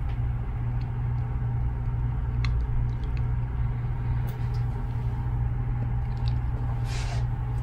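A steady low hum with a faint steady tone above it, a few faint light clicks in the middle, and a short breathy hiss near the end.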